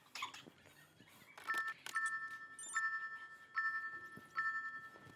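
BMW E82 1 Series dashboard warning chime dinging over and over, about once every 0.8 seconds, starting about a second and a half in, with the ignition switched on and the engine off.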